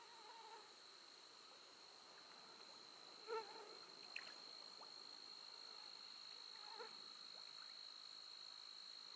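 Faint evening insect chorus, a steady high drone, with three short low animal calls about three seconds apart, the middle one the loudest.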